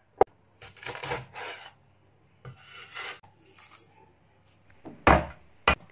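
Cleaver working small red chilies on a bamboo cutting board: a sharp knock of the blade, then stretches of scraping and rubbing, and two loud knocks near the end.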